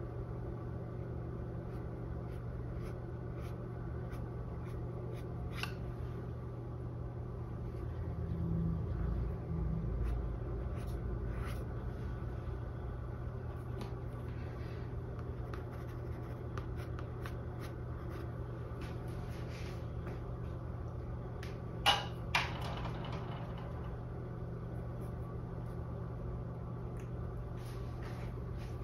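Steady low hum of room tone with scattered faint clicks, and two sharp knocks in quick succession a little over twenty seconds in.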